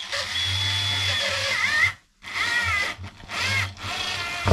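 Cordless drill-driver running into the wooden wall boards in four runs, the first about two seconds long and the rest shorter, its motor whine dipping and rising in pitch as the trigger is eased and squeezed.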